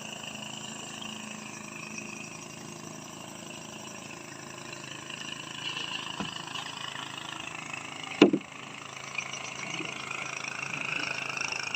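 Steady outdoor background with a high, even hum. A single sharp knock comes about eight seconds in.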